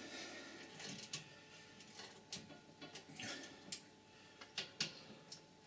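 Ratchet with a 6 mm Allen bit clicking in short, irregular runs as it undoes the hex head bolts on an air compressor's cylinder head, with a few sharper metal clicks from about a second in.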